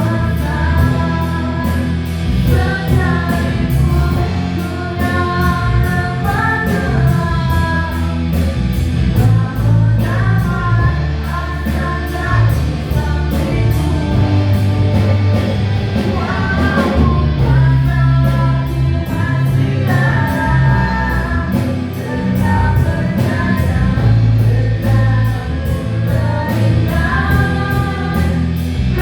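Live praise-and-worship band playing with singing: voices carry the melody over bass and a steady drum beat.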